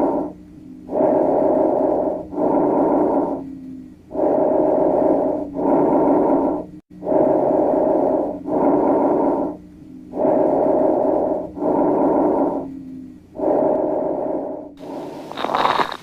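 Recorded lung breath sounds: a regular cycle of breathing in and out, each breath a rushing noise about a second long, the pairs repeating about every three seconds. Near the end a different, hissier sound starts.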